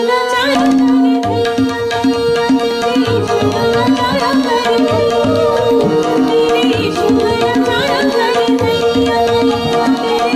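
Indian music with tabla keeping a steady rhythm under a long held drone note, with a wavering melody line above.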